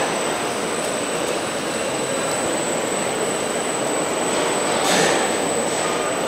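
PALLMANN PPS Contra-Selector mill, with its impeller turning inside the rotating screen basket, running with a steady whirring noise and a thin, steady high-pitched tone. The noise swells briefly about five seconds in.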